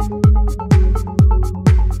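Electronic dance music with a steady kick drum beating about twice a second.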